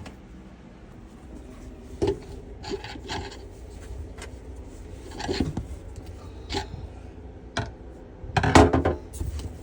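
Kitchen sink drain fitting being tightened by hand: irregular rubbing and scraping of the parts with a few knocks, the longest and loudest stretch of scraping near the end.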